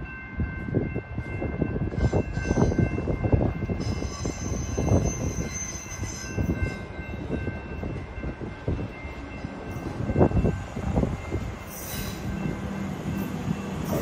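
Comeng electric suburban train approaching and running into the platform, its wheels and motors giving a continuous rumble.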